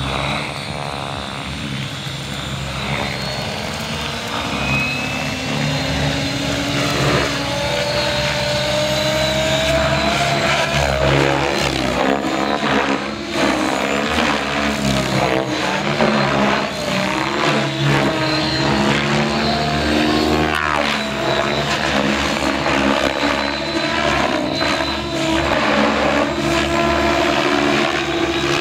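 SAB Goblin 700 electric RC helicopter lifting off and flying. Its rotor whine and blade swish build over the first several seconds, then rise and fall in pitch as it climbs and manoeuvres.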